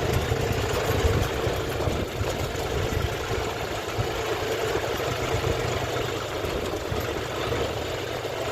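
Diesel engine running steadily with an even, low rumble.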